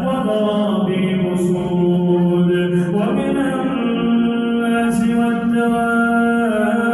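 A man reciting the Quran in a slow, melodic tajweed chant, drawing out long held notes that step to a new pitch about three seconds in and again near the end.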